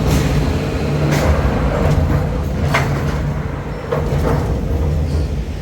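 Skyride cable-car gondola running along its haul cable: a steady low rumble with about four sharp clanks from the carrier and sheave wheels.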